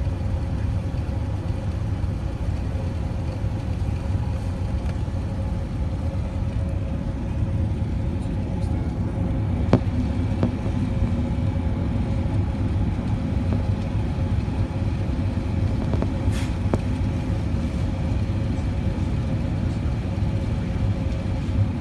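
Steady cabin noise inside an Airbus A380-800 descending on approach: a deep rumble of airflow and engines with a faint steady whine above it. A couple of light clicks come about ten and sixteen seconds in.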